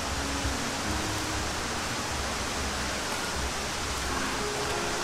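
Steady rushing noise, like wind or running water, over an uneven low rumble. Faint steady tones come in over it near the end.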